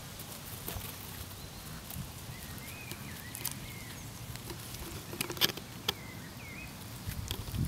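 Scattered sharp clicks and scuffs close to the microphone, loudest a little past halfway, as a coypu noses up to the camera, over a low steady rumble. A few short chirps, likely from a small bird, come in twice.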